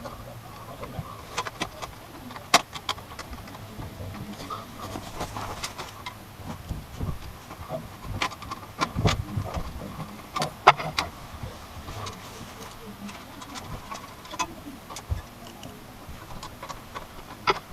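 Scattered sharp clicks and knocks of computer parts and the PC case being handled, with two louder knocks about two and a half and eleven seconds in.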